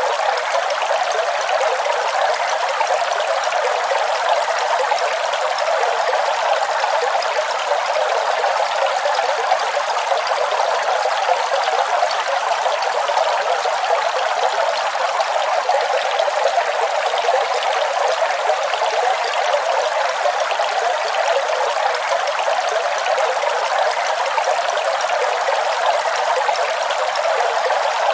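Waterfall: a steady, unbroken rush of falling water, hissy and bright with almost no deep rumble.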